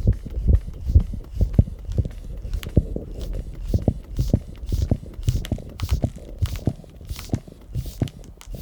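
Korotkoff sounds heard through a stethoscope over the arm artery as the blood pressure cuff is deflated: a regular series of low thumps, one with each pulse beat, growing slightly fainter near the end.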